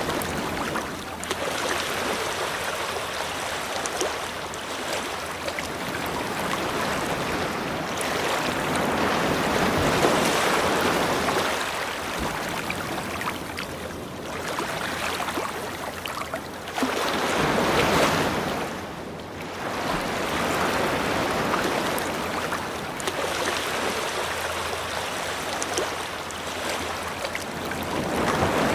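Ocean waves breaking and washing onto a beach, a continuous rush that swells and fades as each wave comes in, with the strongest surges about ten and eighteen seconds in.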